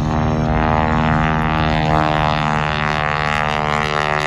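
Stearman biplane's 450-horsepower Pratt & Whitney R-985 radial engine and propeller making a steady droning buzz as it flies a low pass, slightly louder about two seconds in.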